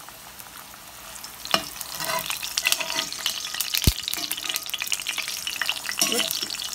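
Tortilla sizzling and crackling in a hot cast iron skillet, with scattered clicks of kitchen utensils. A sharp knock comes about a second and a half in and a dull thump about four seconds in.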